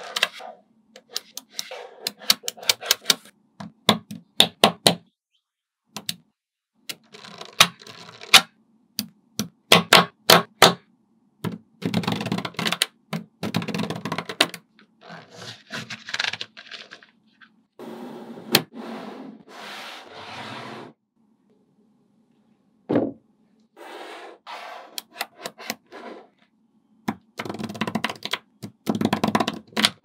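Small magnetic balls clicking as they snap onto one another, in irregular runs of sharp clicks alternating with longer stretches of rapid rattling.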